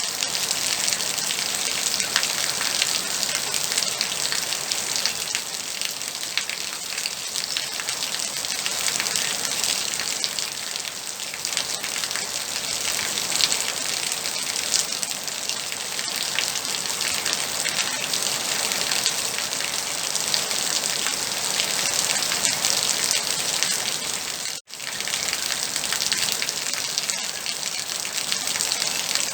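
Steady moderate rain: a dense, even patter of raindrops falling on surfaces. The sound cuts out for an instant about three-quarters of the way through.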